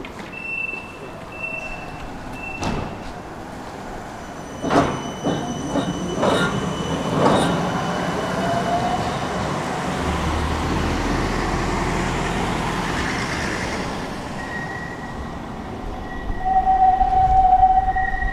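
City tram sounds in the street: three short high beeps at the start, a few sharp clanking knocks, and a rising whine. A low rumble follows in the middle, and near the end a loud, steady high-pitched squeal, like tram wheels on the rails.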